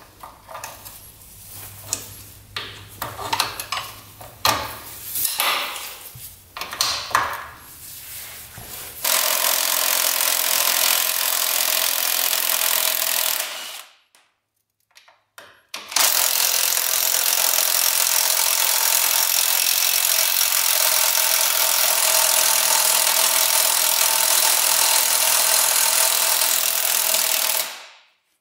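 Scattered metal clinks and knocks of parts and tools being handled, then a power tool running steadily for about five seconds, stopping briefly, and running again for about twelve seconds before cutting off.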